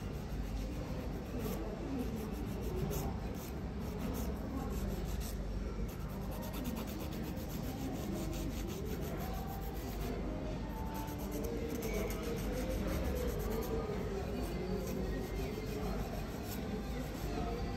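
Fingernails being filed by hand: a nail file rasping in quick, continuous strokes.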